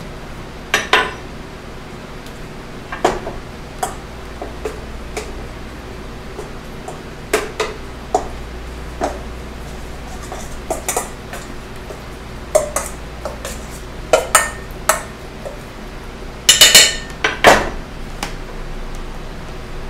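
Stainless steel mixing bowl clinking and knocking as raw chicken is tossed with cornstarch by hand, in scattered light strikes with a louder clatter near the end.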